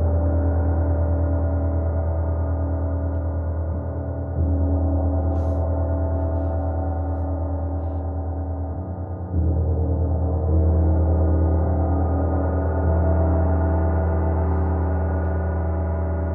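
Large gong ringing in a long sustained wash of deep humming tones and overtones, struck again about four, nine and a half, and thirteen seconds in, each stroke swelling the sound. A faint short high rattle comes about five seconds in.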